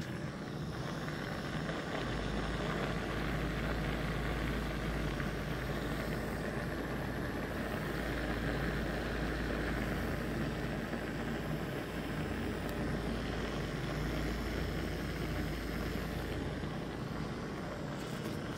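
Small electric motor in the base of an AIDEK electric shaker bottle running steadily, spinning its mixing blade and churning a protein shake. A low hum that stays even throughout.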